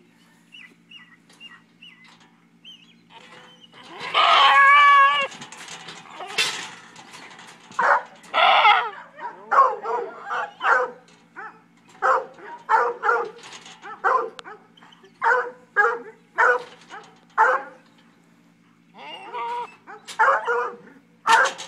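A goat bleating: one long wavering bleat about four seconds in, then a run of short bleats roughly one a second. A steady low hum runs underneath.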